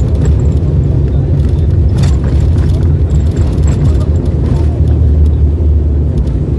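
Steady low drone of a propeller airliner's engines and airflow heard inside the passenger cabin, with a few faint clicks.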